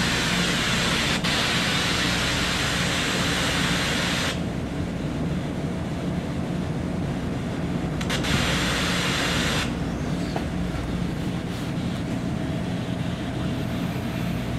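A steady white-noise hiss over a low, even droning hum. The hiss cuts off suddenly about four seconds in, comes back for about a second and a half around eight seconds, then stops again, leaving the hum alone.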